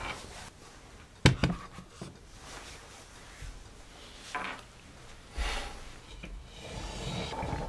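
Hands working on a flower arrangement: a sharp knock a little over a second in, the loudest sound, then a few short rustles and brushing sounds.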